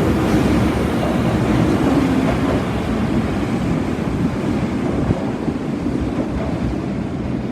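Osaka Metro Tanimachi Line subway train running, a steady rumble and rush of wheel and track noise that slowly grows quieter.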